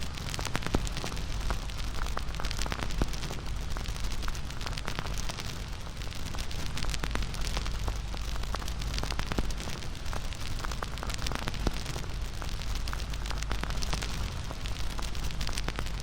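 Wood fire crackling, with many small irregular snaps and pops over a steady low rumble.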